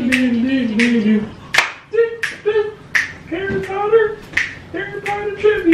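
Fingers snapping a steady beat, about one snap every 0.7 seconds, while a woman sings a wordless tune over it.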